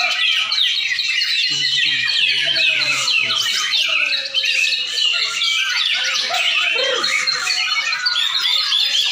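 Several white-rumped shamas singing at once, a dense, unbroken tangle of fast whistles, trills and harsh chatter overlapping one another.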